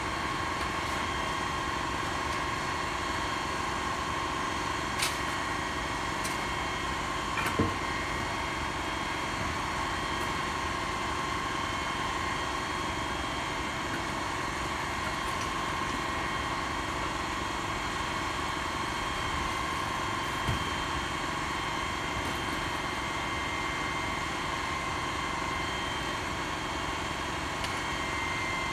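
Rear-load garbage truck's engine idling steadily, with a steady high whine over the engine noise. A few short clunks stand out, about five seconds in, near eight seconds, and about twenty seconds in.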